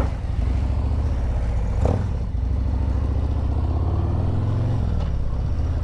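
Harley-Davidson Road Glide's V-twin engine running on the move, its pitch rising for a couple of seconds and then dropping about five seconds in. There is a brief knock about two seconds in.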